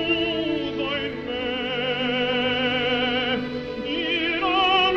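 Operatic music: a sung voice holding long notes with wide vibrato over a classical accompaniment, changing pitch every second or two.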